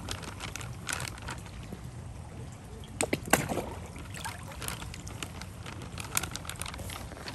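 Red-tailed catfish splashing in shallow water while feeding: a few short, sharp splashes, the loudest about three seconds in, over a steady low rumble.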